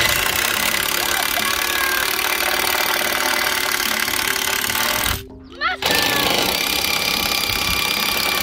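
Cordless drill driving a screw into a wooden coop post, running hard in two long runs with a short stop about five seconds in.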